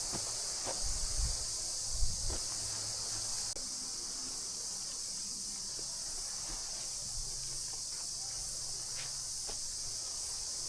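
A steady, high-pitched chorus of insects in forest, unbroken throughout, with a few footsteps or knocks on the trail in the first few seconds.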